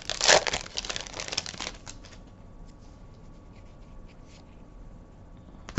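Foil booster pack wrapper crinkling for about two seconds as the trading cards are pulled out. Then quieter handling of the card stack, the cards sliding against each other with a few faint ticks, and a sharp click near the end.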